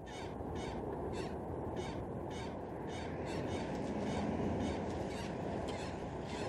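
Birds calling over and over, short harsh calls about two to three a second, over a steady low background hiss.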